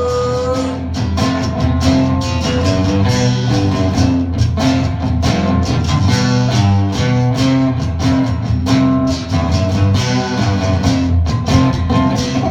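Live acoustic band playing an instrumental passage: strummed guitars over a moving bass line, with the singer's held "oh" ending about half a second in.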